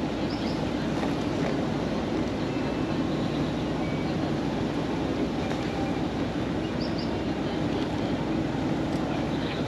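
Steady, even rumble of an idling vehicle engine.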